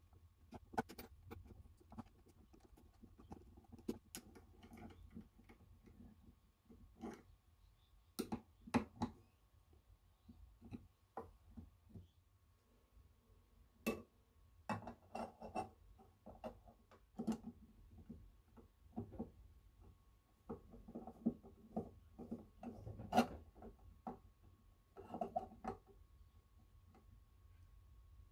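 Faint, irregular clicks, taps and scrapes of a steel screwdriver and small metal parts being handled and fitted while a Peter Pan Model 1 sewing machine is reassembled, with a few louder knocks.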